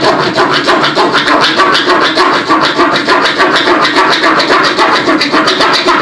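Small pocket-knife saw blade rasping through a hard, fibrous coconut shell in fast, even back-and-forth strokes.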